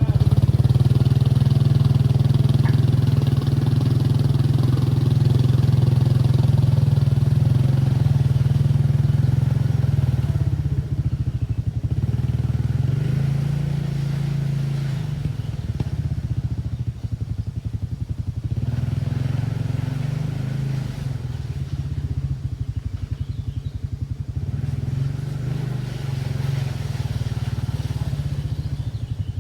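Can-Am 700 XMR ATV engine running under way, its pitch rising and falling as the throttle changes. It is steadier and louder for the first ten seconds or so, then eases off and picks up again several times.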